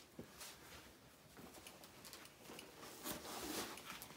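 Faint rustling of a cloth costume being pulled and handled, with a few soft taps.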